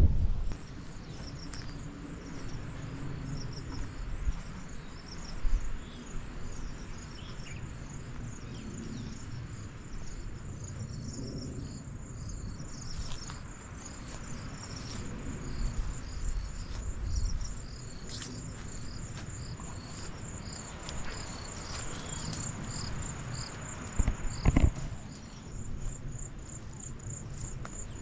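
Insects trilling in a steady high pulse, with a repeating chirp beneath it. Low thumps come now and then, the loudest near the end.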